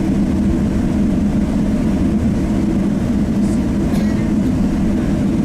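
Boeing 777-300 cabin noise heard from a window seat: a steady, loud engine and airflow noise with a constant low hum, unchanging throughout.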